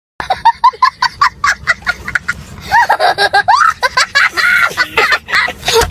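A young child laughing hysterically: loud, rapid high-pitched cackles in quick bursts, some drawn out into rising and falling squeals.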